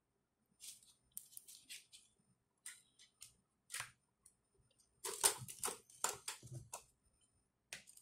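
Light scattered clicks and scrapes of fingers handling a circuit board and fitting a diode's wire leads through it, with a denser run of clicks about five seconds in.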